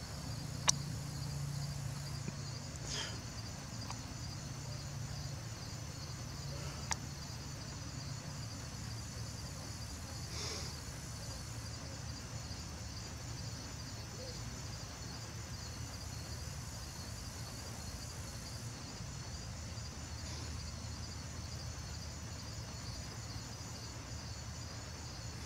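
Night crickets chirping in a steady high trill, over a low steady hum. A sharp click comes about a second in and a fainter one about seven seconds in.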